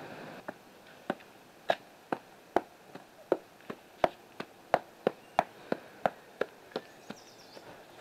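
Blood dripping steadily from a freshly killed rooster, hung head-down in a kill cone, into a plastic bucket: sharp plinks about three a second, weaker near the end.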